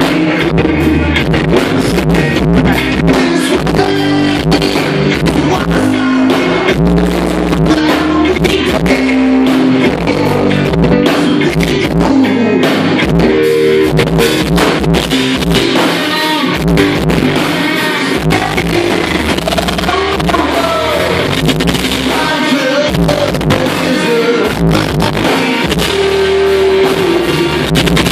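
A live rock band playing a song: guitars and a drum kit with a lead singer.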